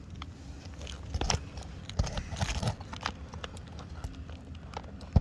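Irregular knocks, taps and clicks of hand roofing work with hammer and nails, with one sharp knock at the very end.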